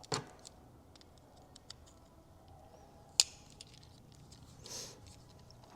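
Small plastic clicks and scrapes of a car key fob's casing being prised apart with a small screwdriver, with one sharp snap about three seconds in and a brief scrape near the end.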